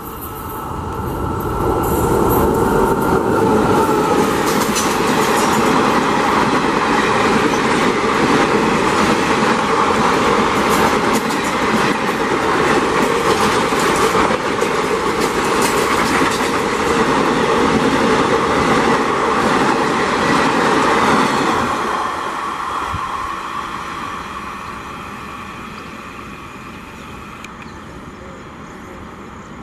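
Passenger train hauled by a WAP-4 electric locomotive passing at full speed. The sound builds in the first two seconds to a loud rush of wheels clattering over rail joints, holds for about twenty seconds, then fades as the coaches recede.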